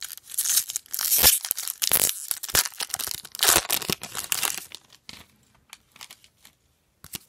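Trading-card pack's foil wrapper tearing and crinkling as it is opened, for about four and a half seconds; after that only a few light clicks of cards being handled.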